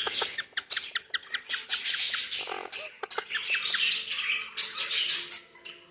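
Ringneck parrot squawking and chattering in harsh calls, with a quick run of clicks in the first two seconds.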